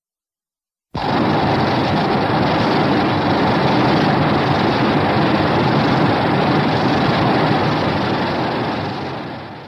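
Godzilla sound effect from the Heisei films: a loud, rough, rumbling blast with no clear pitch. It cuts in suddenly after a second of silence, holds for about eight seconds and fades away at the end.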